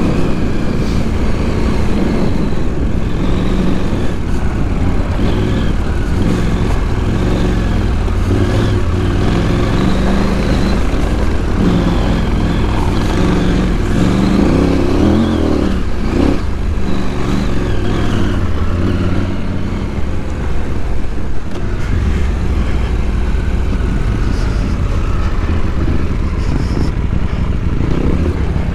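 KTM adventure motorcycle's engine running under way, its note rising and falling with the throttle, with a brief rise and drop about halfway through.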